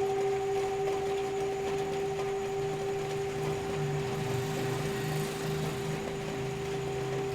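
Tibetan singing bowl ringing on in a long, steady tone that slowly fades, with a low wavering hum beneath it and a steady hiss behind.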